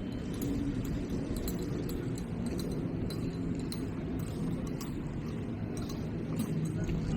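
Steady low rumble of a train, with a faint hum and scattered light clicks.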